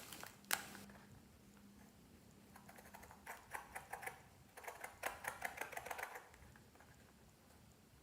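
Glossy slime being worked and squeezed by hand, giving small sticky clicks and pops: one sharp click about half a second in, then rapid clusters of clicks from about two and a half to six seconds in.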